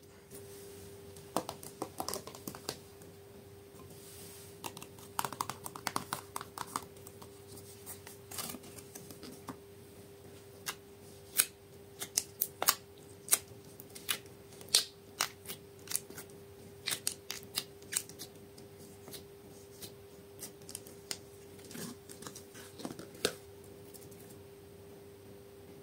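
Hands handling slime and plastic packaging, making irregular sharp clicks and snips, some in quick clusters, over a steady hum.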